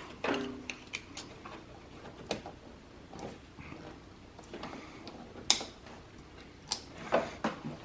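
Scattered sharp plastic clicks and taps as wiring connectors and their locking tabs are pushed into a headlight housing, with the loudest clicks a little over two seconds in and about halfway through.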